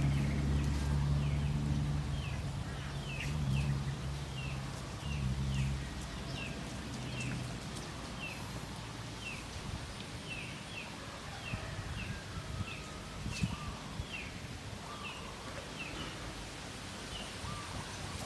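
A bird calling over and over with short, quick, downward chirps, about one or two a second. Under it, a low steady motor hum fades out about six seconds in.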